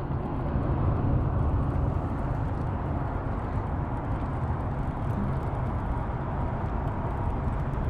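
Wind buffeting the microphone: a steady low rumbling noise with no pitch to it.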